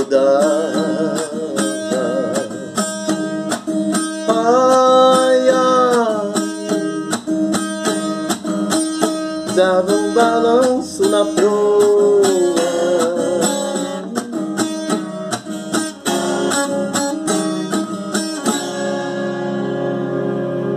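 A man singing with vibrato to his own strummed acoustic guitar. The voice stops about three-quarters of the way through and the last guitar chord is left ringing.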